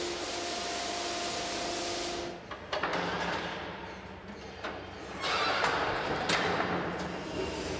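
Locomotive workshop machinery noise: a steady hiss with a faint whine, then a sudden change to a low hum with rushes of noise.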